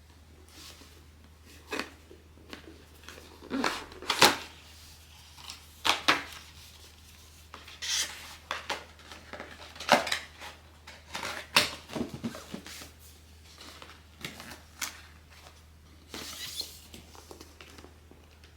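Blind-box packaging being opened by hand: irregular crinkles, rustles, tearing and sharp clicks of cardboard and plastic wrapping, with a longer crinkling stretch near the end.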